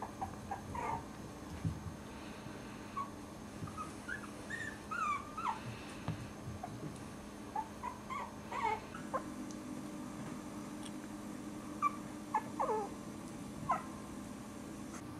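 Four-week-old Cairn Terrier puppies whimpering: many short, high squeaks and whines that slide up or down in pitch, scattered through the whole stretch.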